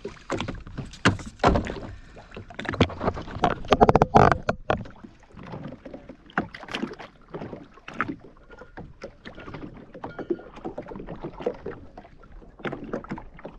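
Water slapping and splashing against the hull of a Sea-Doo Fish Pro jet ski, with irregular knocks and splashes. The loudest stretch comes a little past three seconds in.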